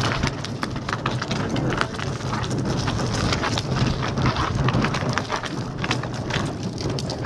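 Footsteps on gritty asphalt while walking, with many irregular clicks and rattles from gear carried along.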